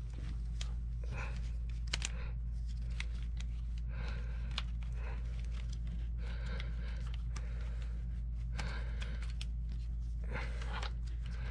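A steady low hum runs throughout, with scattered small clicks, taps and rustles from hands handling the plastic axle parts and pin of an RC truck.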